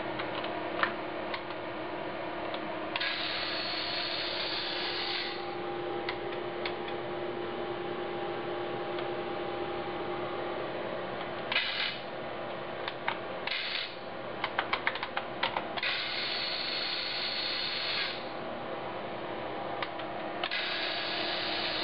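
Small gear motors of a homemade wheeled robot whirring in five separate bursts as typed commands drive them, the longest about two seconds. Short clicks from keyboard typing fall between the bursts, over a steady low hum.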